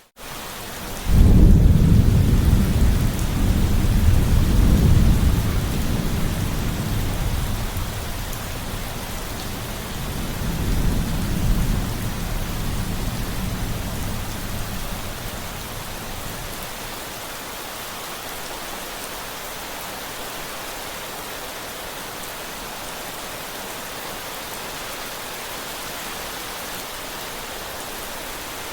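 Steady heavy rain hiss with a thunderclap breaking in about a second in. The thunder rumbles low and loud, rolls on with a second swell around ten seconds, and dies away by about sixteen seconds, leaving the rain alone.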